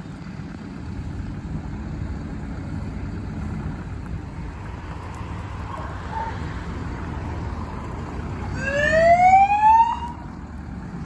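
An SES rescue truck drives past with a steady low rumble. Near the end its siren gives one loud rising sweep lasting about a second and a half, then cuts off suddenly.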